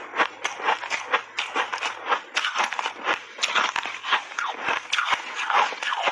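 Refrozen block ice coated in matcha powder being bitten and chewed close to a clip-on microphone: rapid, irregular sharp crunches, several a second.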